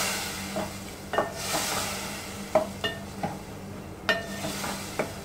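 Wooden spatula stirring tomato masala in an aluminium pot, knocking against the pot about six times, over a hot sizzle from water just poured into the oil that fades away over the first couple of seconds.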